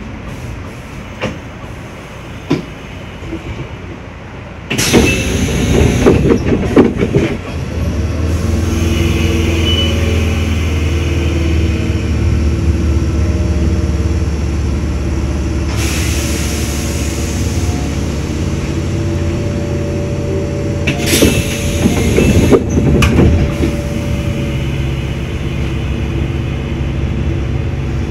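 Electric commuter train running along the track: quieter at first, then a sudden burst of clattering about five seconds in, followed by a steady hum of several pitches as it runs on, with another spell of clattering about twenty-one seconds in.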